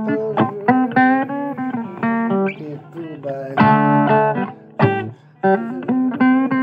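Guitar music: plucked notes picked in quick runs, each ringing briefly, with short pauses between phrases.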